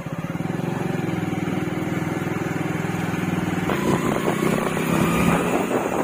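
A vehicle engine running steadily close by, with a low even hum. About four seconds in, a rushing noise like wind joins it and grows louder.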